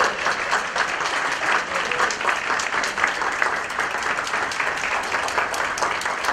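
An audience applauding: many people clapping steadily in a large room.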